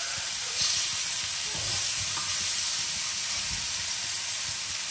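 Tomato and sweet potato slices sizzling in a frying pan as they are turned with a fork, with a brief louder hiss about half a second in.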